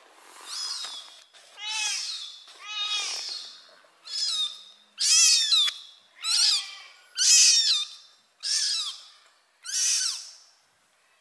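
A very young kitten crying: about nine high-pitched mews, roughly one a second, several of them falling in pitch.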